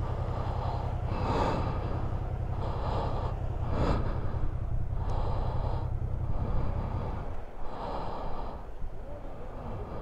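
A person breathing close to a helmet-mounted microphone: about six audible breaths, roughly one every second or so. Under them is a steady low rumble that drops away about seven seconds in.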